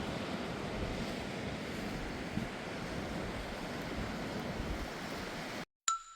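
Steady rush of falling or breaking water, an even hiss with a low rumble underneath. It cuts off suddenly near the end, and a single bell-like chime note rings out.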